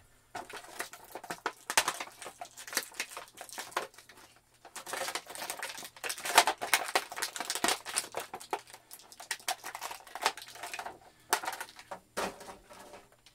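Clear plastic packaging crinkling and rustling as it is handled, in irregular bursts with small clicks, busiest a few seconds in.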